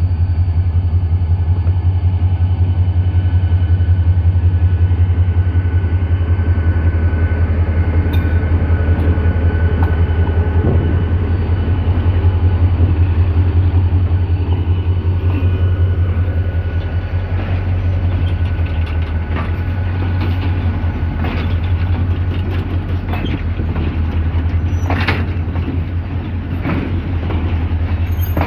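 GMU-30 diesel-electric locomotive's engine working hard in notch as it pulls a heavy freight train, a deep steady throb that eases a little past midway as the locomotive goes by. From about a third of the way in, sharp clicks and clatter of wheels over the rail joints join in, loudest near the end as the loaded wagons roll past.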